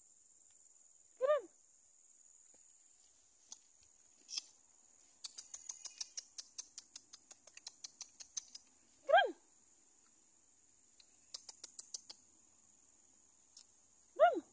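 A puppy giving short, high yelps that fall in pitch, three of them a few seconds apart, over a steady high insect drone. In the middle a quick run of sharp clicks, about eight a second, goes on for some three seconds.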